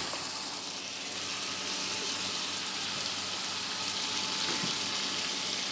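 Canned tuna and sliced bell peppers sizzling steadily in a frying pan: an even, high hiss.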